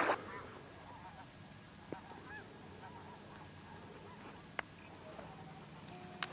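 Faint, distant waterfowl calling: a handful of short rising-and-falling calls, over a low steady background hum. A single sharp click about four and a half seconds in.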